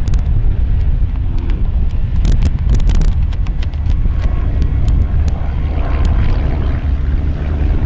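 Classic unlimited hydroplane's aircraft piston engine running loud, a steady low rumble with scattered sharp clicks and wind on the microphone.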